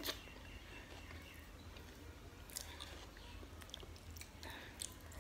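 Faint, close-miked chewing of a mouthful of spiced mashed potato and rice, with scattered soft wet mouth clicks and smacks.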